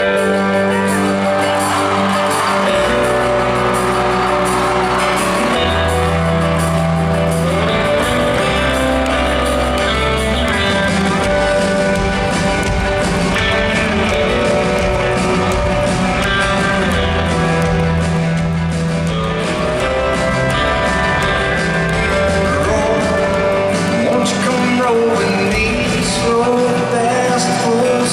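A live band playing a country song at concert volume, with guitars over a bass line that changes notes every few seconds.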